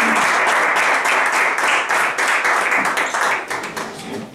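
A small group of people applauding, thinning to a few scattered claps near the end.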